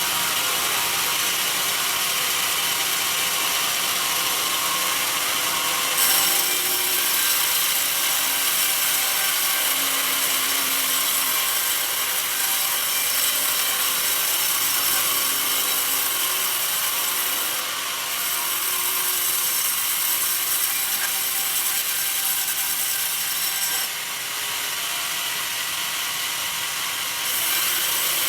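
Sawmill band saw cutting a mahogany log: a steady, high-pitched mechanical noise that grows louder about six seconds in and dips a few times later.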